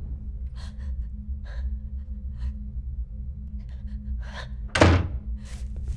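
A low steady drone under a few short soft sounds about once a second, then one loud, heavy thump about five seconds in.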